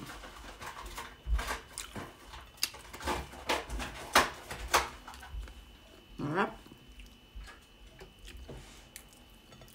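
A person eating spicy chicken feet by hand: scattered wet smacks and clicks of chewing and sucking at the bones, with a short rising "mm" about six seconds in.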